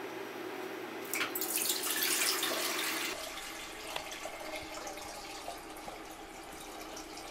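Water poured from a plastic jug into a stainless steel saucepan, splashing loudest between about one and three seconds in, then running as a softer stream.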